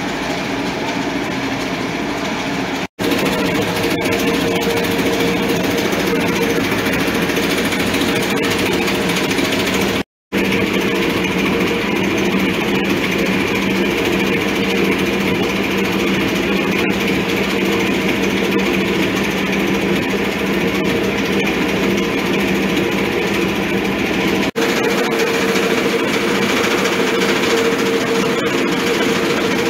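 Electric grinding mill running steadily as chiles are ground into mole paste, a continuous motor drone with a low hum. The sound drops out for an instant three times: about three seconds in, about ten seconds in, and near the end.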